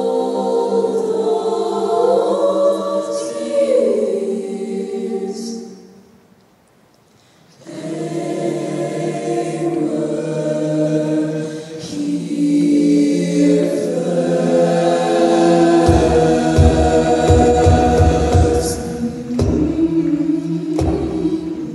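All-female a cappella group singing in close harmony into microphones. The singing stops for about a second and a half around six seconds in, then resumes, and from about sixteen seconds in a low vocal-percussion beat joins it.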